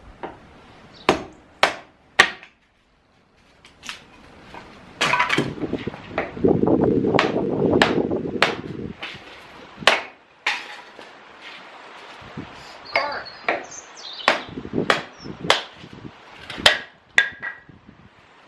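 Firewood being split by hand: a series of sharp, unevenly spaced blows of a sledgehammer or splitting maul on logs, with a few seconds of dull low rushing noise near the middle.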